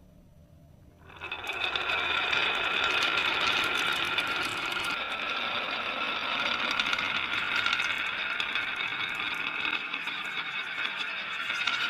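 Marbles rolling and clattering along a marble-run track, starting about a second in and running on steadily as a dense rolling rattle with many small clicks.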